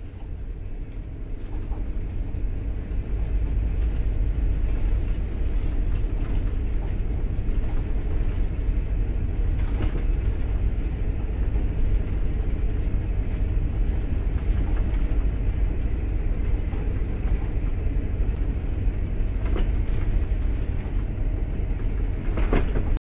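Steady low rumble of a car driving, heard from inside the cabin: road and engine noise that builds over the first few seconds and then holds.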